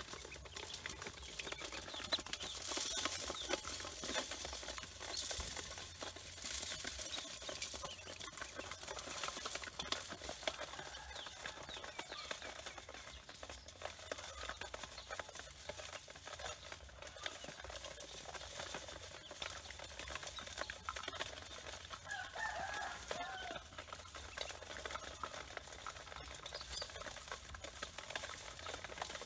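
A large brood of ducklings crowded in an aluminium basin, peeping and chirping over one another in a constant busy chorus. A lower, clearer call stands out about 22 seconds in.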